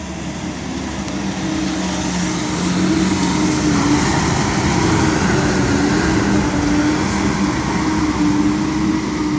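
Off-road vehicle engine running steadily under load, its pitch wavering slightly, over a steady rushing noise.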